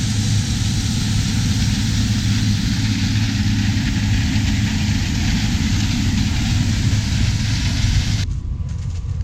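Heavy farm machinery engine running steadily, a deep hum under a broad hiss. The hiss drops away suddenly about eight seconds in.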